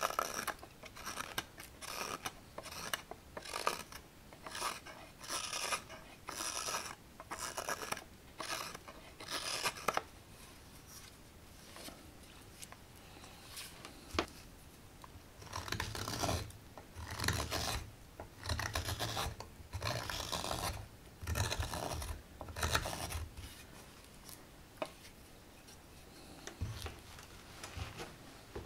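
Hook knife shaving curls out of the bowl of a green walnut ladle: a run of short scraping cuts, roughly one a second, with a pause in the middle. When the cutting resumes, many strokes carry a dull low knock.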